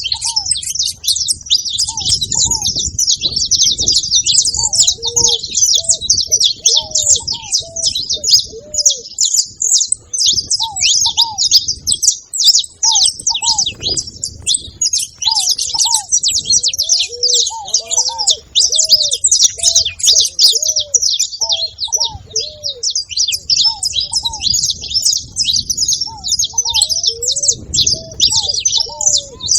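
Saffron finch (canário-da-terra) singing and chattering: a fast, unbroken stream of high, sharp chirps. Lower, short rising-and-falling notes recur underneath.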